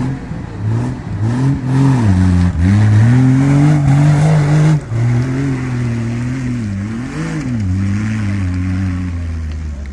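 An off-road 4x4's engine under load, its revs rising and falling again and again, highest about three to five seconds in, then dropping sharply and settling to a lower, steadier note.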